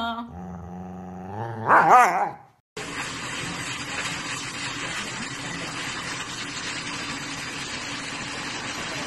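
A husky puppy vocalizing in drawn-out, wavering whines, loudest just after two seconds in. The sound then cuts to the steady rush of a high-velocity dog grooming dryer blowing out a husky's thick undercoat.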